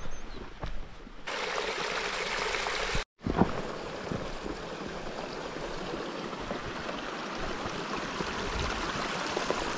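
A stream running steadily, with a short break about three seconds in.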